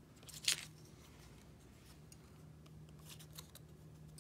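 Small scissors cutting printed paper: one short, sharp cut about half a second in, then a few lighter snips and clicks around three seconds in, over a faint low hum.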